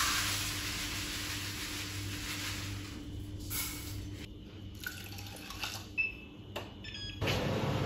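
A packet's contents poured into a saucepan, a rushing hiss that fades out over the first three seconds. Then light clicks and several short electronic beeps from the touch controls of a Bosch induction hob, over a low steady hum.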